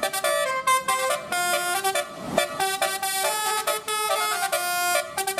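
Telolet bus horn: a bus's set of electric multi-tone air horns playing a quick melody of short notes, the pitch jumping from note to note several times a second.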